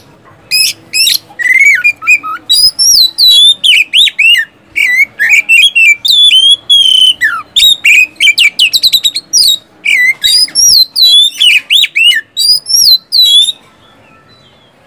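Oriental magpie-robin (kacer) singing loudly in full song: a rapid run of sharp, sweeping whistled notes and quick repeated strokes, stopping about a second before the end.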